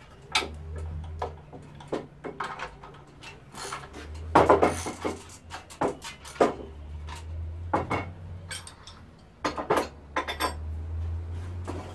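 Metal hand tools clinking and knocking against bolts and wood while the bolts of a wooden stand leg are tightened: a dozen or so separate sharp clinks, with stretches of a low steady hum.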